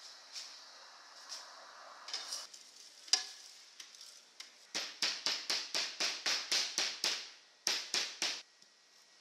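Faint sizzling hiss for the first couple of seconds, with a few light clicks and a sharp metallic clink. Then a knife chops rapidly on a cutting board, even strokes about four a second, pausing briefly before three more.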